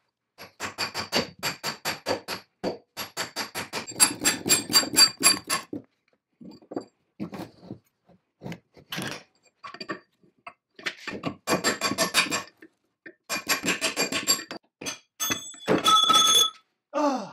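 Hammer blows on a brass drift set in the bore of a cast-iron swing saw arm, driving out a shaft or pin. The blows come in quick runs of about four to five a second, each with a short metallic ring, with a few single knocks between the runs. Near the end there is a short ringing scrape of metal.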